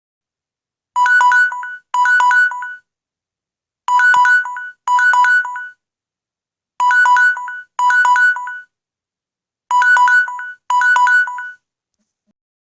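Samsung Galaxy 'Ticktac' countdown-timer alarm tone, Android 5–6 version: electronic beeps alternating quickly between two pitches. They come in pairs of short bursts that repeat about every three seconds, four times.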